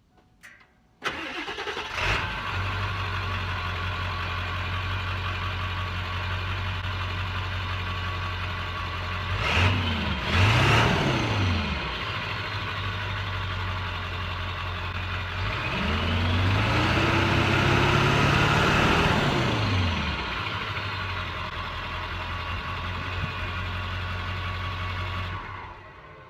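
Ford 7.3 Powerstroke V8 turbo-diesel heard through its stock exhaust, starting about a second in and settling to a steady idle. It gives two quick throttle blips, then one longer rev held for a few seconds, drops back to idle, and is shut off near the end.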